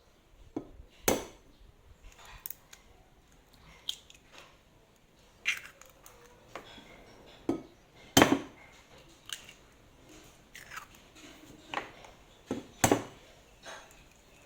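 Kitchen work: about ten irregular sharp knocks and clicks of utensils and dishes, three of them much louder than the rest.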